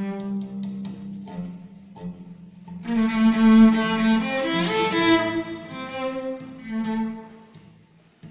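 Solo cello bowed: a held low note under a slow melody, swelling louder about three seconds in and fading away near the end.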